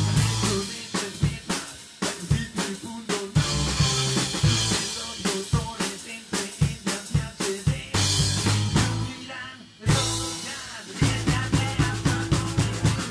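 Rockabilly band music led by a drum kit, with snare and bass-drum hits and rimshots over a bass line; it breaks off briefly about ten seconds in, then the band comes straight back in.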